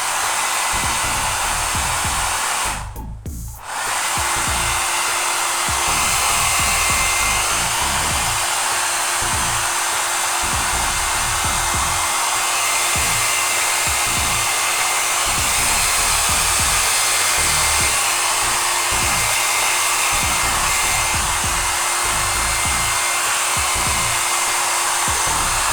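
Handheld hair dryer blowing steadily, used to dry and set hair. It cuts out for about a second roughly three seconds in, then runs on evenly.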